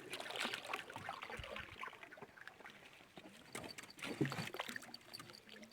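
Small knocks and water sounds around a canoe as it sits and shifts at a riverbank, irregular clicks with a faint lapping.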